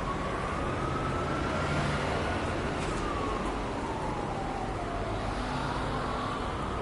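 Emergency-vehicle siren on a slow wail, gliding up, down and up again, over the steady rumble of busy road traffic.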